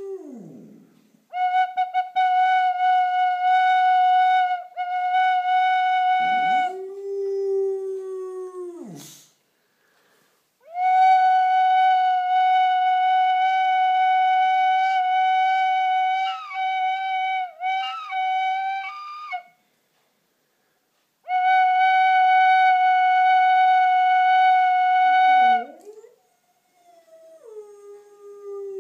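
Tin whistle playing long held high notes, broken by pauses in which a boxer dog howls along, each howl sliding down in pitch. The whistle comes three times; the howls fall between its notes and again near the end.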